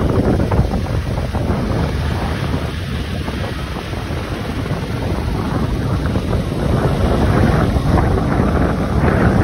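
Wind buffeting the microphone, a loud, continuous rumbling roar that swells slightly toward the end.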